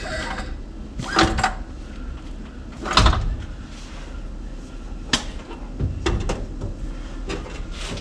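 Scattered knocks and clanks of metal work on a car raised on a jack, about half a dozen over a low steady hum, the loudest a heavy thump about three seconds in.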